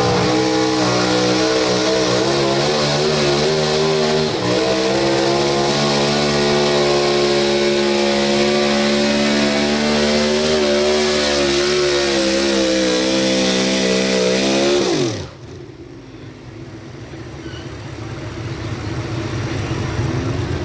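Pro stock 4x4 pulling truck's engine running at high revs under load during a pull, with a brief dip about four seconds in. About fifteen seconds in the revs fall away sharply and the engine sound drops to a much lower level.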